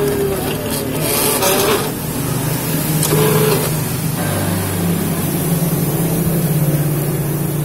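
Silhouette Cameo V2 cutting plotter's motors whirring over a steady hum as the blade carriage and paper rollers move, with a few short whines that rise and fall in pitch.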